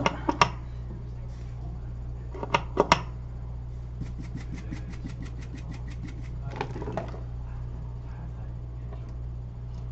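Cleaning of an iPhone 6 main board on a repair bench: a run of quick, even strokes, about eight a second, lasting a couple of seconds, with a few short knocks and clicks before and after. A steady low hum from bench equipment runs underneath.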